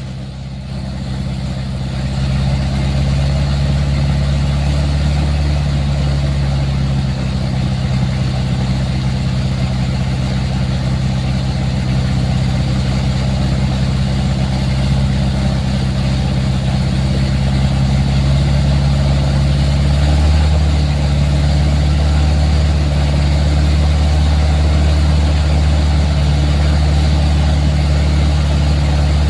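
Engine of a large rice-paddy ploughing machine running steadily with a low, even drone. It grows louder over the first two or three seconds, then holds steady.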